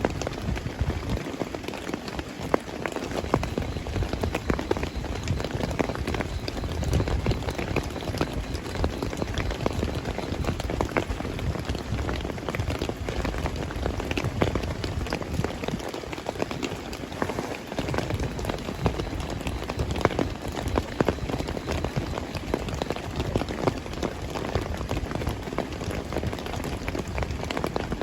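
Heavy rain falling: a dense, steady hiss scattered with many sharp ticks of individual drops striking.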